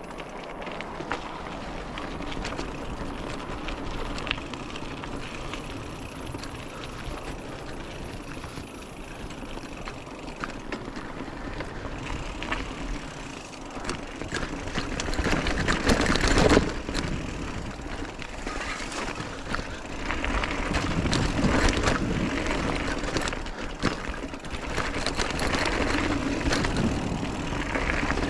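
Mountain bike riding down a rocky dirt singletrack: tyres crunching over gravel and stones, with the bike and its gear rattling over bumps and wind rushing over the microphone. It grows louder about halfway through and again in the last third.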